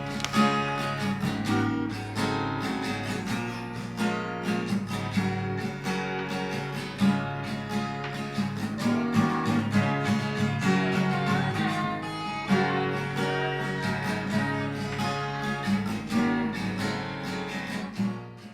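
Background music: strummed acoustic guitar with other instruments, ending abruptly.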